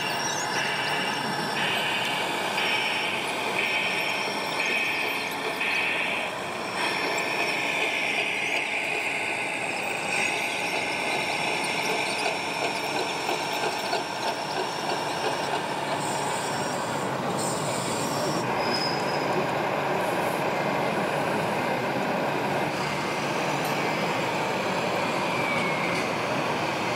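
Radio-controlled Liebherr 634 crawler loader model driving, with a high squealing whine from its drive and tracks that comes and goes about once a second, then holds steady for a few seconds, over a continuous din of hall noise.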